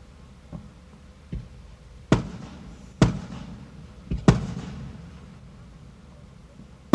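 Fireworks going off: a string of sharp bangs, the loudest three to four coming about a second apart in the middle, each trailing off in an echo.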